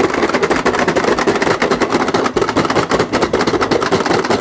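Pie Face Showdown game buttons being mashed as fast as possible by two players: a rapid, dense stream of plastic clicks, with a wavering hum beneath.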